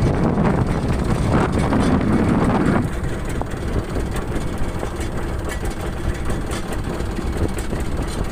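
Fishing boat's engine running steadily at sea, with wind and water noise on the microphone. A louder rushing noise fills the first three seconds and drops off suddenly, leaving the steady engine rumble.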